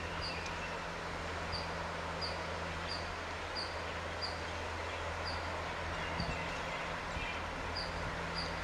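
Steady low drone of a distant ALCO WDG 3A diesel locomotive approaching, with a bird's short high chirp repeating about every two-thirds of a second over it.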